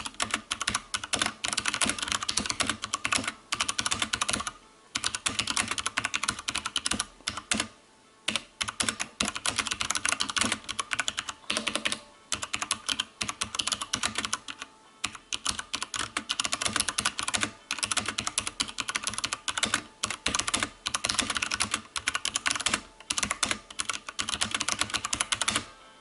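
Fast, continuous typing on a mechanical keyboard with genuine Cherry MX Brown switches: a dense clatter of keystrokes with a few short pauses.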